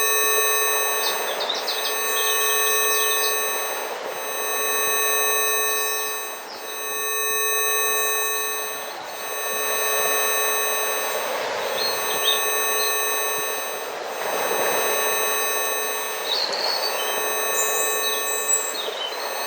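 A steady electronic tone with a set of overtones, the Rife healing frequency, sounds over a nature soundscape. Beneath it a rushing noise swells and fades every two or three seconds, and birds chirp in short bursts now and then.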